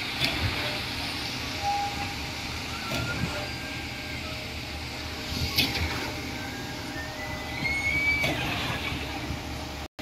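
Steady drone of heavy construction machinery engines, broken by several sharp knocks and clanks, with a few short high-pitched chirps and a thin rising whistle near the end.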